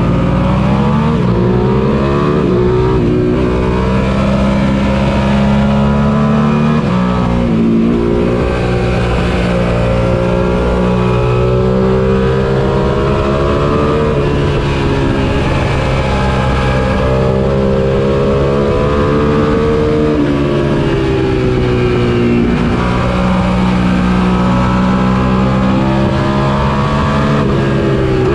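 Suzuki SV650's 645 cc V-twin engine, heard onboard while racing. The revs climb through the gears and drop sharply every few seconds at gear changes and when braking for corners.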